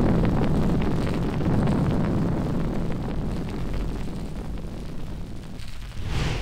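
Explosion rumbling and slowly dying away after a blast, with small crackles of fire; two short rushing bursts come near the end.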